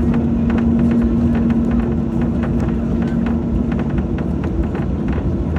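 Steady low rumble and hum inside the cabin of a Boeing 737-800 on the ground before takeoff, with a steady tone that fades out a little under four seconds in and scattered light clicks.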